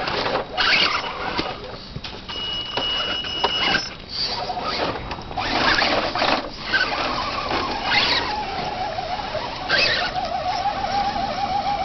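Scale RC rock crawler's electric motor and gearbox whining, the pitch wavering up and down with the throttle over the second half, with scrabbling and crunching of tyres on rock, dirt and dry leaves. A brief high steady whine comes a couple of seconds in.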